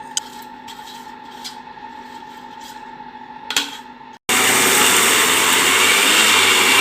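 Electric mixer grinder (mixie) starting abruptly about four seconds in and running loud and steady, wet-grinding soaked rice and dal into batter. Before it, a few light clicks.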